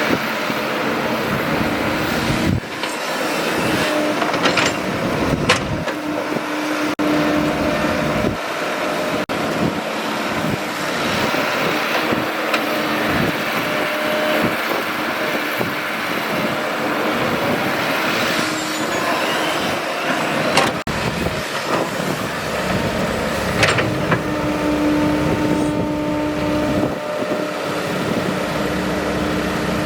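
Excavator engine running steadily under working load, with a whine that swells and fades at times and scattered sharp knocks.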